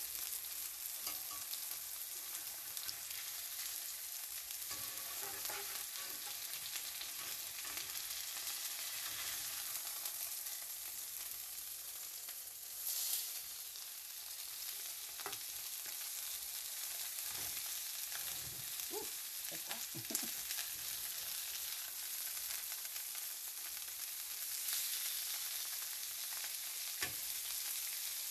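Parmesan-crusted chicken breasts sizzling steadily in hot olive oil in an enameled cast-iron skillet, with scattered clicks and scrapes of a metal spatula as the pieces are turned. The sizzle flares up briefly about halfway through.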